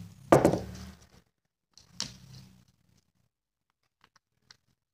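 Handling knocks on a tabletop as a small plastic cup of slime is handled and set down: a sharp knock, the loudest, then a smaller one about a second and a half later, and a few faint clicks near the end.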